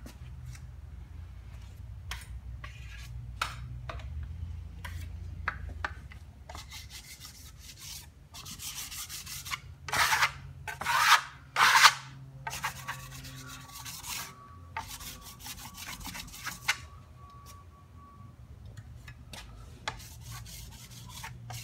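A flat plaster trowel scrapes and rubs metallic micro plaster across a sample board in repeated strokes, blending touch-up patches into a two-tone finish. About halfway through come three louder, sharper sweeps. A low steady hum runs underneath.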